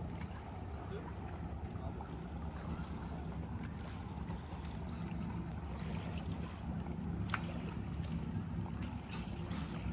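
Steady low drone of a boat's engine with water rushing alongside, as on a lake boat under way. A sharp click about seven seconds in.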